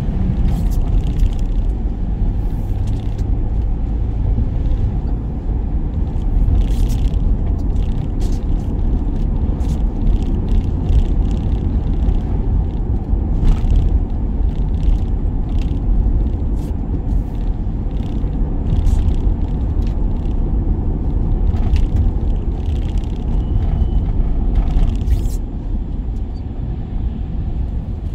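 Van on the move heard from inside the cab: a steady low engine and road rumble, with scattered short clicks and ticks over it.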